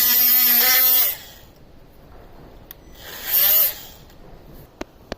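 A handheld electric power tool running steadily, then winding down and stopping about a second in; it is briefly run up and coasts down again a couple of seconds later. Two sharp clicks follow near the end.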